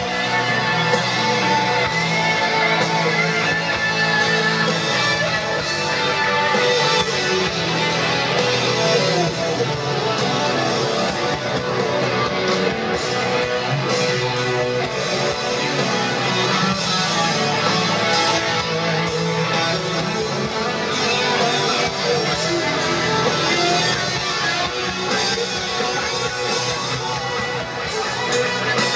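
Progressive rock band playing live, heard from within a large concert crowd; the music is loud and steady, with thin bass.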